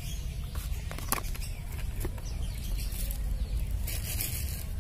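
Outdoor ambience: a steady low rumble with faint bird chirps and a couple of light clicks about a second in.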